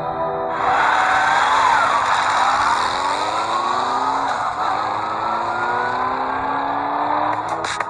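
Motor scooter riding by and pulling away, starting suddenly about half a second in. Its engine note glides up and down over a steady hiss. Music with a regular beat comes in near the end.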